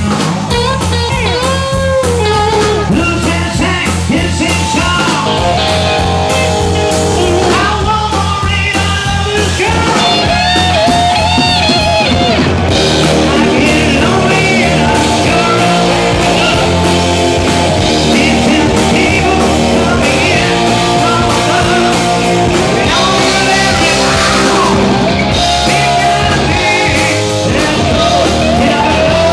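Live rock band playing loudly and steadily, with electric guitar over bass.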